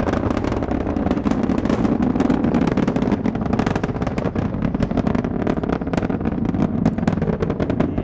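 Space Shuttle Endeavour's rocket exhaust during liftoff, its solid rocket boosters and main engines heard from the viewing area: a loud, steady deep rumble thick with rapid crackling.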